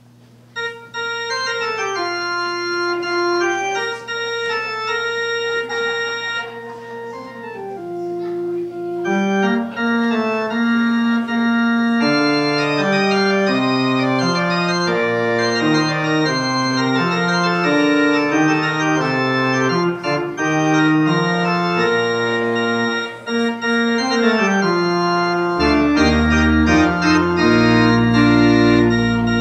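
Church organ playing the closing postlude: held chords that change every second or so over a moving lower line, with deep bass notes coming in near the end.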